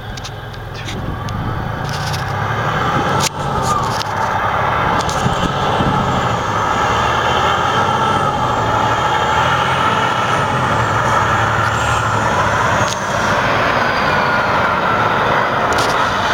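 Freightliner Coronado semi-truck's diesel engine running as the tractor drives slowly toward and past, growing louder over the first three seconds and then holding steady.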